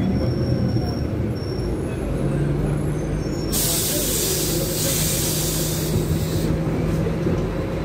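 Interior sound of a Scania K250UB city bus, its rear-mounted Scania OC09 in-line six-cylinder engine running steadily. About halfway through, a loud hiss of compressed air from the bus's pneumatic system lasts about three seconds and cuts off.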